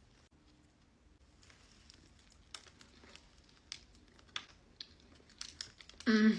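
Faint, scattered crisp clicks and mouth noises of someone biting into and chewing a filled donut. A short hummed 'mm' comes near the end.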